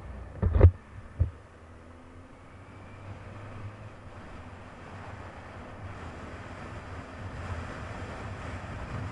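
Riding on a 1999 Kawasaki ZX-9R: its inline-four engine running under the noise of wind on the camera microphone, which slowly grows louder. Two sharp knocks, about half a second and just over a second in, stand out as the loudest sounds.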